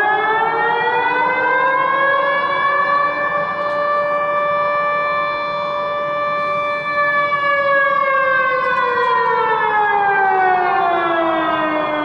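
Civil-defence warning siren wailing from the city's street loudspeakers, sounded as a test of the public warning system. Its pitch rises, holds for a few seconds, falls slowly in the second half, and starts rising again near the end.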